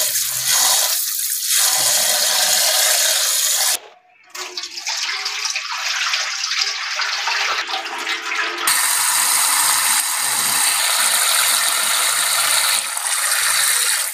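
Water running from a tap while rice is washed, a steady rush broken off briefly about four seconds in.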